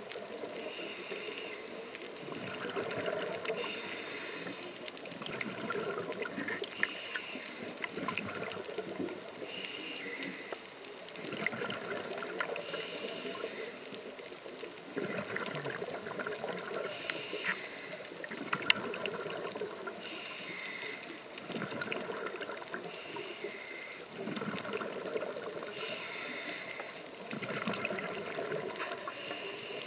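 Scuba diver breathing through a regulator underwater: a hissing breath about every three seconds, with the gurgle of exhaled bubbles in between. A single sharp click sounds just past the middle.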